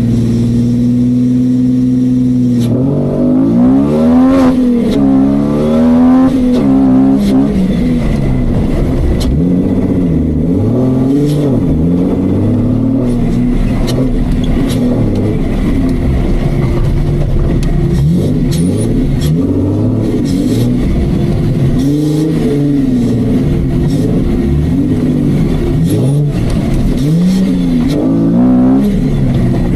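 Off-road Jeep engine held at steady revs, then from about three seconds in revving up and falling back again and again as the vehicle is driven hard over the course.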